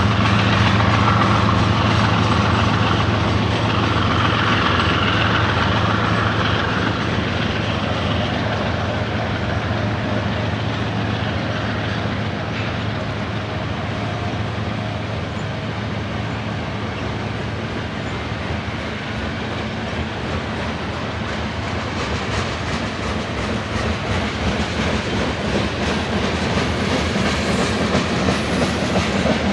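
A BNSF mixed freight train's cars rolling past: steady wheel-on-rail noise with clickety-clack, growing louder and more clattery near the end. The diesel locomotives' engine drone is heard at first and fades within the first several seconds as the lead units draw away.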